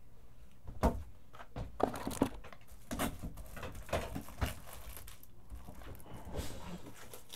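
Plastic and cardboard packaging being handled at close range: irregular crinkling and rustling with sharp clicks, and a brief tearing sound.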